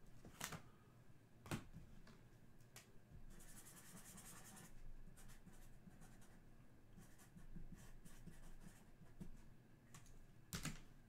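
Faint handling of trading cards and foil packs: a few light taps and clicks, with a short rustle about three to four seconds in.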